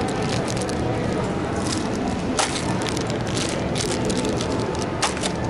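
Busy sale-room bustle: a steady jumble of background noise from shoppers, with sharp clicks and clatter of merchandise being handled, one clear click about two and a half seconds in and another near the end.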